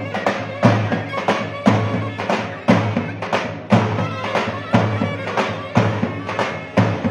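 Mehter-style band of zurna and davul playing: a shrill reed-pipe melody over a deep bass drum struck about once a second, with lighter beats in between.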